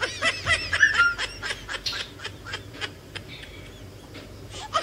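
A woman's high-pitched, distressed wailing cries, loudest in the first second or two and then trailing off, with a run of quick sharp clicks about five a second.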